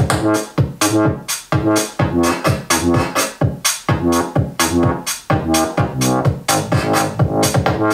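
Electronic beat music with a steady drum-machine rhythm, played loud on a Tribit Stormbox Pro portable Bluetooth speaker during a volume test.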